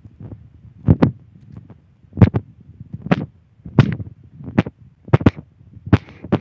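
A series of sharp thumps, about one every second or less, several coming in quick pairs.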